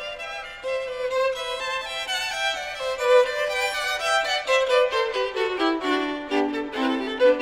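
Background music in which a violin plays a melody in stepwise notes, falling through a run of lower notes about five seconds in.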